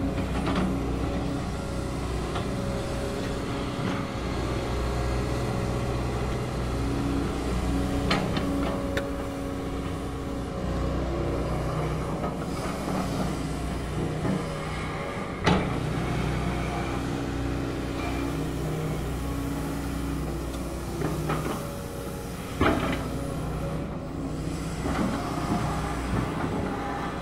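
SANY SY215C crawler excavator's diesel engine running steadily under working load, its note shifting as the machine swings and moves on a gravel pile. A few sharp clanks stand out, the loudest about halfway through and another about three-quarters of the way.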